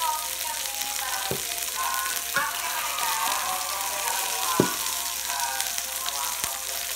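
Meat sizzling steadily on a tabletop yakiniku grill, with faint background music. A few sharp clicks from things set on the table, the loudest a little past halfway.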